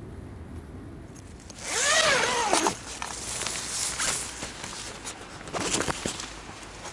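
A zipper being pulled, with a long pull about a second and a half in whose pitch rises and then falls with the pulling speed, and a second shorter pull near the end.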